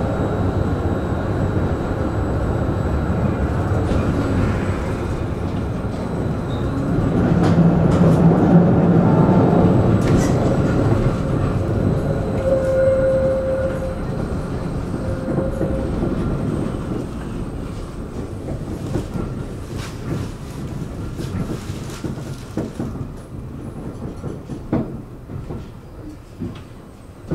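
Tram running along the track: a steady rumble with clicking from the wheels over the rails. It grows louder a few seconds in, then eases off and grows quieter over the second half.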